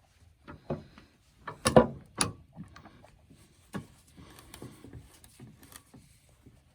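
Wooden knocks and scraping as boards are shifted by hand. Two loud knocks come about two seconds in, followed by lighter clicks and rubbing.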